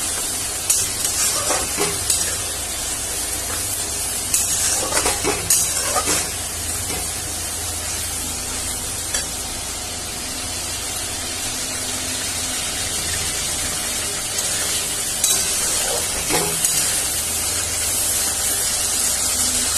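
Tomato, green chilli and ginger paste sizzling steadily as it fries in hot oil in a metal kadai. A flat metal spatula stirs it, scraping and knocking against the pan a few times.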